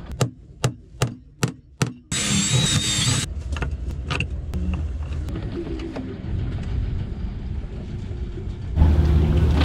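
Cordless drill work: about six sharp clicks in the first two seconds, then the drill runs with a brief high whine, followed by small knocks and handling noise. Near the end a louder low rumble comes in.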